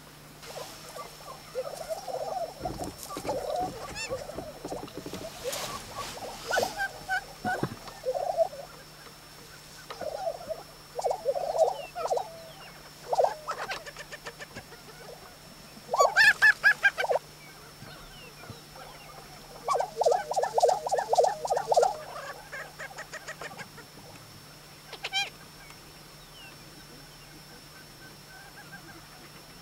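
Lesser prairie chickens calling on a lek: males giving their display calls in short bursts of rapid, stuttering pulses, mixed with higher clucking notes. The loudest burst comes about halfway through, another follows a few seconds later, and the calling thins out near the end.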